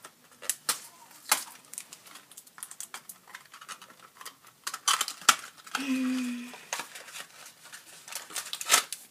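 Small plastic blind-bag wrapper of a Minecraft mystery minifigure crinkling and clicking as fingers pick and tear it open, in irregular sharp rustles. A short low hum sounds for about half a second about six seconds in.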